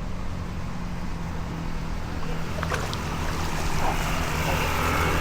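A steady low engine hum, with a rushing hiss that builds over the second half.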